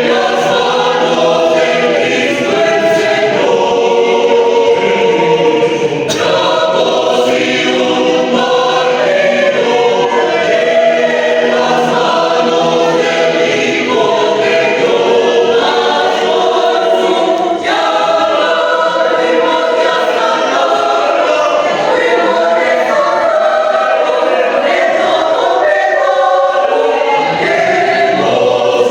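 A choir singing, many voices together on held notes.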